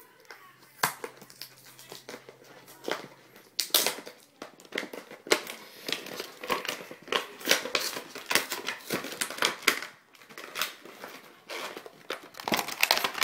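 An action-figure box of cardboard and plastic being pried and torn open by hand: a continuous run of irregular crinkles, crackles and rips.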